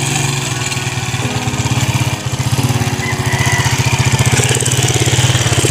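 Honda TMX 155 single-cylinder four-stroke motorcycle engine running at low revs as the bike is ridden slowly, a rapid, even exhaust beat that grows stronger about two seconds in.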